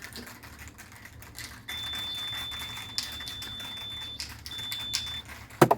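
Multimeter continuity beeper sounding one steady high beep of about two and a half seconds, then a shorter one, across the defrost thermal fuse: the fuse shows continuity. Light clicks and taps of the probes come throughout, with one sharp knock near the end.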